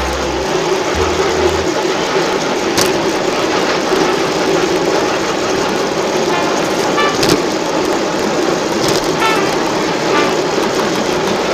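Miniature ride-on railway train running along the track: a steady rumble of the wheels on the rails, with a few sharp clicks at irregular intervals.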